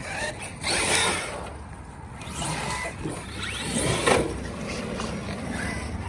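Large electric RC truck running on the track: its motor whining up and down as it is driven, with a sharp thump about four seconds in.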